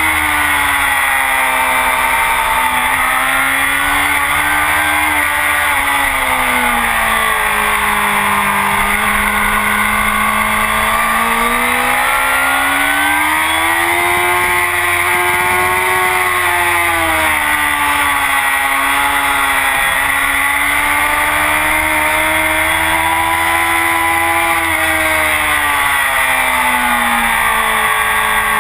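Honda CBR1000RR inline-four engine breathing through a full Akrapovic exhaust, running at speed with its revs rising and falling in slow, smooth swells: falling over the first several seconds, climbing to a peak about halfway, then a long fall toward the end.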